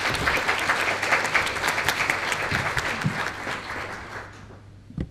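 Audience applause, dense clapping that fades out about four seconds in, followed by a single sharp knock near the end.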